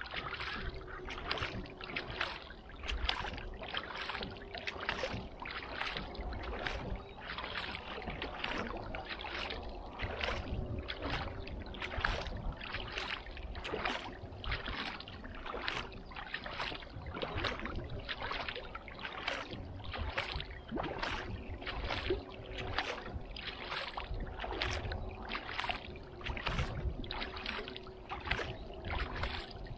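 Kayak paddle blades dipping and pulling through calm lake water in an even rhythm, about three strokes every two seconds, with a faint steady hum underneath.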